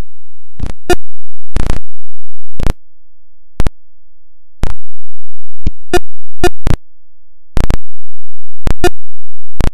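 Music of short, clipped notes spaced out by brief gaps, about a dozen in all, some with a clear pitch.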